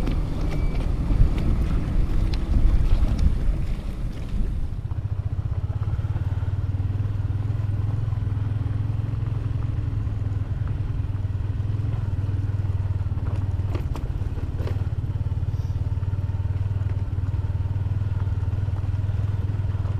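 Motorcycle engine running, louder and rougher for the first few seconds, then settling into a steady low hum about five seconds in.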